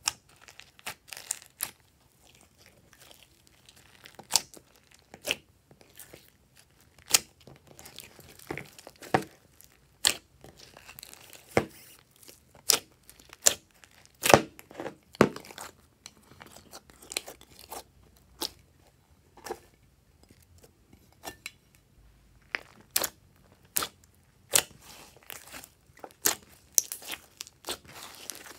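Hands kneading, folding and squeezing glossy slime: irregular sticky pops, crackles and squelches, some of them sharp and loud.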